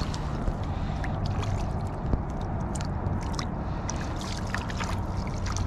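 A trout thrashing in a landing net at the water's surface, the water splashing and sloshing in quick, irregular bursts over a steady low rumble.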